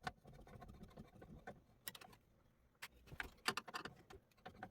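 Small irregular clicks and taps of a screwdriver and screws against the metal of a PC case while a motherboard's mounting screws are worked into the standoffs. The clicks are densest about three to four seconds in.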